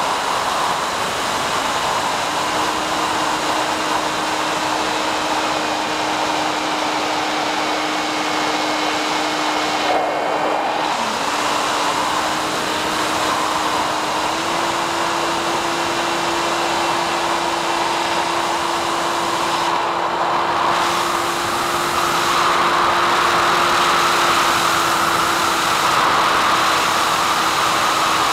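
Static hiss from a weak analog FPV video link, with the SkyHunter's electric motor and propeller droning faintly underneath; the drone's pitch steps up slightly twice.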